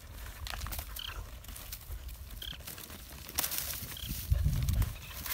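Several dogs digging and sniffing in dry dirt clods, with scratching and small scraping clicks, a few short high squeaks, and a brief low rumble about four seconds in.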